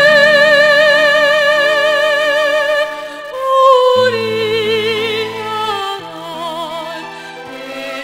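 A woman singing a slow Chinese song with wide vibrato over sustained backing chords. She holds one long note for about three seconds, then starts a new phrase on a higher note that steps down.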